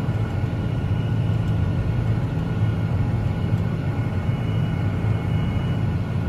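Tractor engine running steadily under load as it pulls a two-row rolling cultivator through sweet potato rows, with faint steady higher-pitched whines over it.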